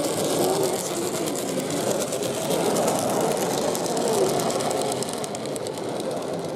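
Model narrow-gauge train running along its track: a small electric motor whirring and many fast ticks from the wheels on the rails.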